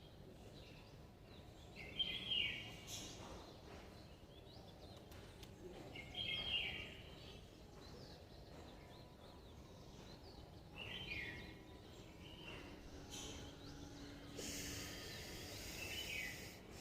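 A bird calling, a short chirp of sweeping notes repeated four times about four to five seconds apart, over faint outdoor background noise. Near the end comes a steady hiss lasting about two seconds.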